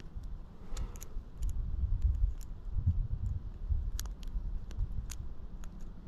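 Irregular small metallic clicks and ticks of a lock pick and tension wrench working the pin stacks of a Cisa 26020 30mm padlock, a lock full of spool pins, over a low rumble.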